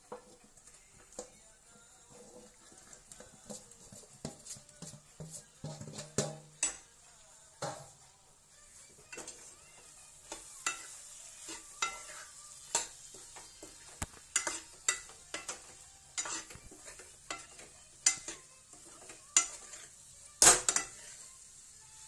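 Metal ladle scraping and knocking irregularly against a black kadhai as boiled gram-flour dumplings (gatte) are stirred into a hot, sizzling spiced masala, with a faint sizzle underneath. The loudest clack comes near the end.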